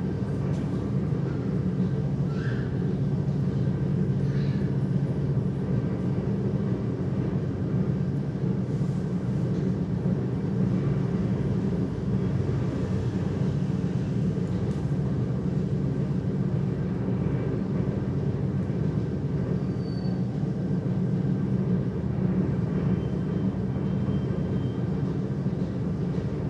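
A steady low rumble at an even level with no breaks, the background noise that also runs under the talk on either side.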